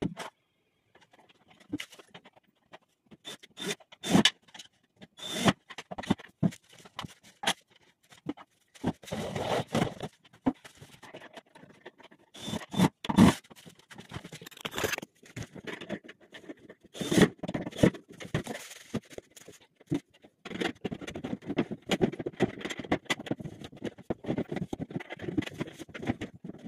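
Irregular knocks, clicks and scraping from hands working on a flat-pack wardrobe, its panels and fittings being handled during assembly. A few sharper knocks stand out, the loudest near the middle.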